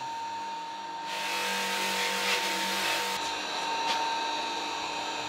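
Polishing buffer running steadily with a whine, the knife handle held against the wheel with pink buffing compound, giving a louder hiss from about one to three seconds in.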